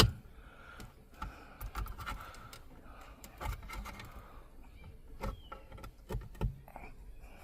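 Plastic interior trim being pried apart with a pry tool along its seam: scattered light clicks and taps, with a few louder knocks in the second half.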